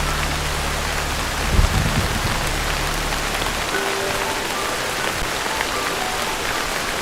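Heavy rain drumming steadily on a tin roof. A low rumble underneath gives a brief low jolt about one and a half seconds in and dies away about halfway through.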